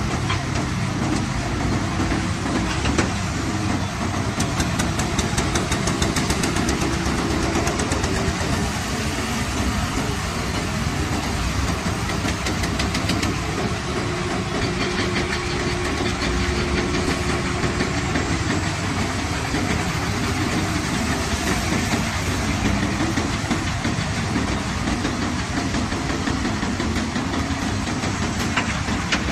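Heavy construction machine's diesel engine running steadily under load, with light rapid ticking in places.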